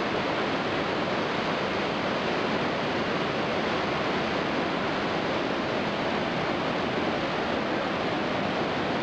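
Iguazu Falls: the steady, even rush of many large cascades of water pouring down the cliffs.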